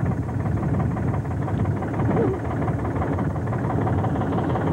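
A boat's engine running steadily, a continuous low rumble.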